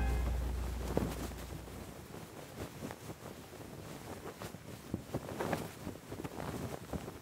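A cloth flag flapping in the wind, a faint run of irregular rustles and snaps, after the last of the anthem's music dies away in the first second or so.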